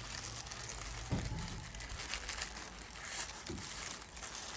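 Crinkling and rustling handling noise, with a soft thump about a second in.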